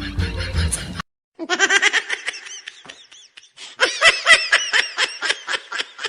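Laughter in a quick run of short, high ha-ha bursts, starting after a brief silent break about a second in, with a louder stretch near the middle.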